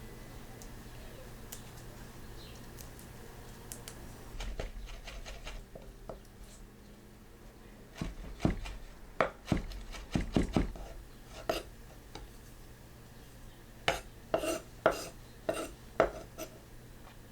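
Kitchen knife chopping on a cutting board for guacamole ingredients: a run of sharp, uneven knocks around the middle and another near the end, with quieter handling sounds before them.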